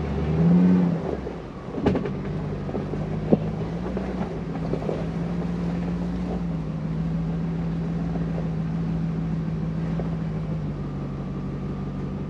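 Mercedes G-Class engine running steadily as it drives along a dirt track, with a few sharp knocks, the loudest about two seconds in and again about a second later.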